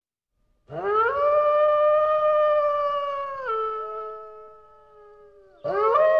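Wolf howling twice. The first long howl rises in about a second in, holds steady, then drops in pitch and fades out. A second howl starts near the end.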